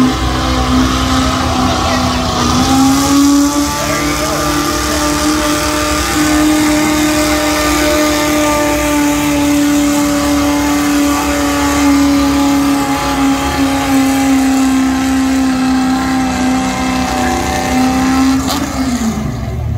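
1976 Ford F-250 pulling truck's engine held at high revs under full load through a sled pull, loud and steady. Its pitch rises slightly about two and a half seconds in and drops away near the end.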